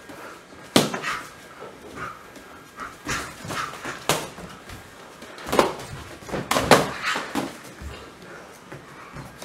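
Boxing gloves smacking on gloves and headgear during sparring: about half a dozen sharp hits, the loudest a little under a second in and a quick pair around two thirds of the way through, with softer scuffing and breathing sounds between.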